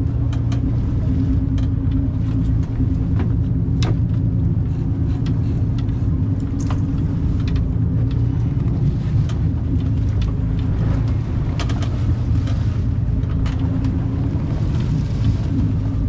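Engine of a 48-foot fishing boat running at a steady drone, with scattered light clicks and knocks on top.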